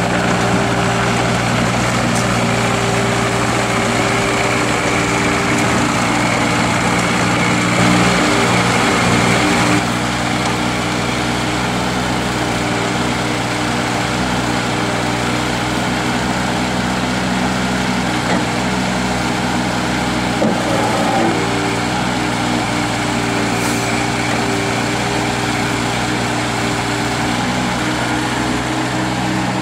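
Eurocomach ES 250 mini excavator's diesel engine running steadily while the boom and bucket are worked. The engine note rises and grows a little louder about eight seconds in, then settles back about ten seconds in.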